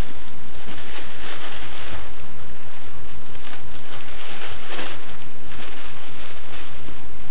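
Crinkling and rustling of a thin plastic bag as a cat rolls on it and kicks a toy, in several louder rustles over a steady loud hiss.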